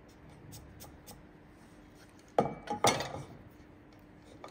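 Sliding bevel being lifted and set back down on the timber: a sharp hard clack about halfway through, then two more close together, each ringing briefly.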